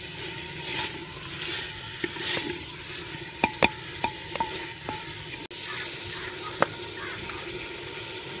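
Cauliflower sizzling in hot oil in a clay pot while a slotted spoon stirs and scrapes it, at the dry-frying (bhuna) stage of aloo gobi. A few sharp knocks of the spoon against the pot come about halfway through.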